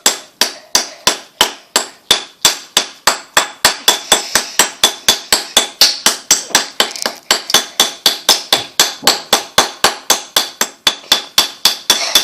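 A hammer striking a hard block of ice over and over in quick, even blows, about three to four a second, without breaking it through.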